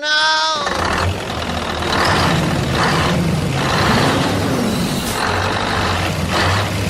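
Vehicle engine running steadily, with a series of short hissing bursts over it and a brief horn-like tone at the very start.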